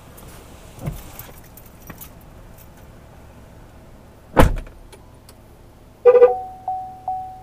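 Pickup truck door being opened and then slammed shut, the loudest sound, about halfway through, with keys jangling. Near the end comes a short horn-like chirp and a steady electronic tone that restarts a few times.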